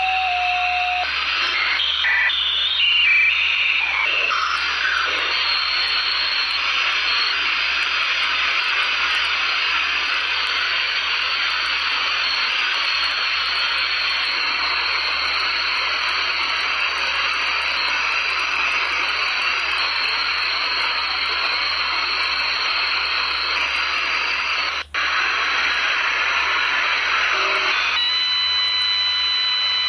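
Radio receiver static while scanning frequencies: a steady hiss, with a few short tones stepping up and down in pitch in the first few seconds. About 25 s in the sound drops out for a moment, and near the end several steady whistle tones come in over the hiss.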